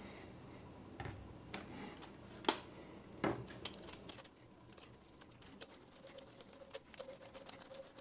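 Hand roller and tools handled on a granite surface plate while bluing for a scraping print is spread: a few sharp clicks and taps in the first half, then many small, quieter ticks as the roller works the blue across the stone.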